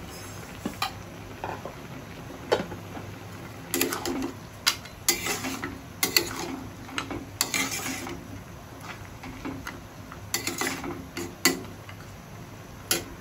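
Metal spatula scraping and clinking irregularly against a metal kadai while stirring bottle gourd and lentil dumplings (bori) simmering in milk; quiet at first, with most of the clatter from a few seconds in until near the end.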